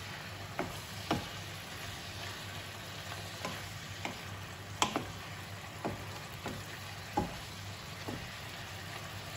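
Beef and broccoli sizzling in a nonstick wok while a wooden spatula stirs them, knocking against the pan at irregular moments about once a second over a steady frying hiss.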